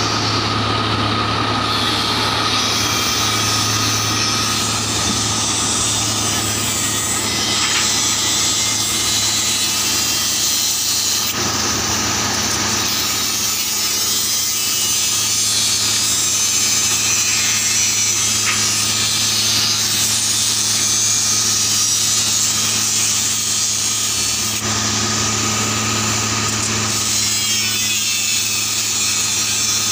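A 09-32 CSM continuous-action track tamping machine working the line. A steady engine hum and a thin steady whine run under a loud, continuous grinding rasp from the tamping tools working the ballast.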